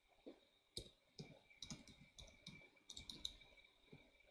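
Faint keystrokes on a computer keyboard: a run of irregular taps as a short command is typed.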